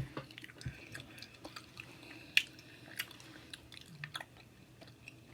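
Close-up mouth chewing a soft, chewy Hot Cheeto-coated popper, with scattered small wet clicks and smacks. The sharpest click comes about two and a half seconds in.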